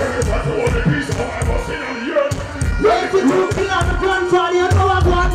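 Live dancehall music played loud over a stage sound system, with a voice on the microphone; a heavy bass beat comes in near the end.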